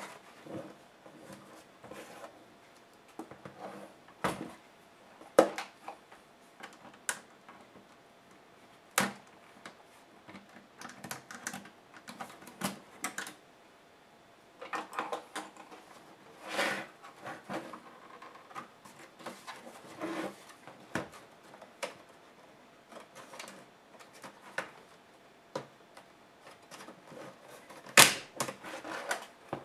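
Plastic casing parts of a Dell Studio 1558 laptop clicking and knocking as they are handled and pried apart with a small tool. The irregular sharp taps are loudest about five seconds in and again near the end.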